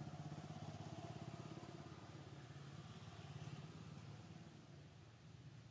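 A small engine running with a rapid, even beat, faint and growing fainter through the second half.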